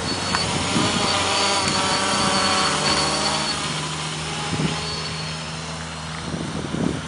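RC quadcopter's electric motors and propellers buzzing steadily in flight, the pitch shifting a little as the throttle changes and dropping about two and a half seconds in.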